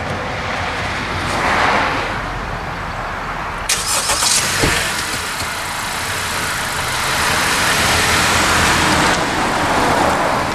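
A 2017 Honda CR-V running as it is moved and pulled into the shop, its engine and tyres making a steady noisy sound. A sharp burst of clatter cuts in about four seconds in.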